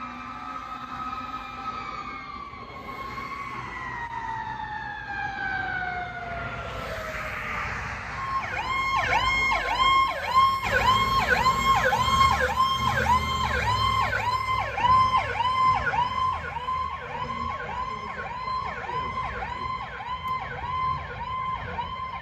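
Fire apparatus siren winding down, its pitch falling slowly over about six seconds. After a cut, a fire officer's pickup truck's electronic siren runs on a fast yelp of about two rising-and-falling sweeps a second, over low engine and traffic rumble.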